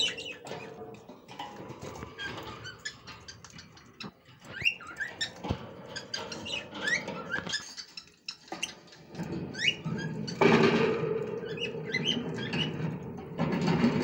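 Pet lovebirds chirping: a scattered run of short, sharp rising chirps, with a louder burst of rustling noise about ten and a half seconds in.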